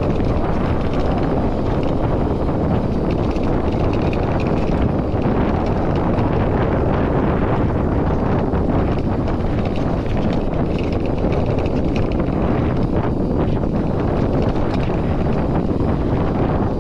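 Wind rushing over an action camera's microphone as a mountain bike rolls fast downhill on a loose dirt track, a steady loud noise mixed with the crunch of knobby tyres on dirt and small rattles from the bike.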